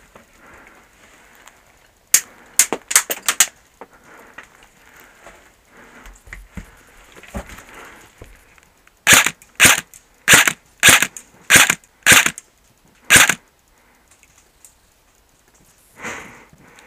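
Airsoft rifle shots: a quick rattle of sharp cracks about two seconds in, then about eight single shots, roughly two a second, in the middle.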